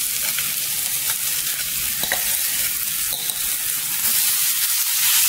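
Frying sizzle from a hot pan of onion, chilli and spice masala with mashed potato just added, while a silicone spatula stirs and scrapes the potato through it. The sizzle gets a little louder about four seconds in.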